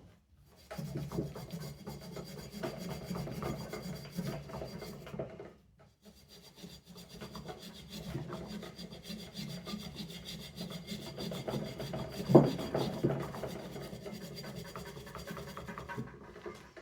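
Rusty metal ignition parts of a vintage Briggs and Stratton engine being scrubbed by hand to clean off rust: quick rubbing strokes that stop briefly about five and a half seconds in, with one louder scrape near the twelve-second mark.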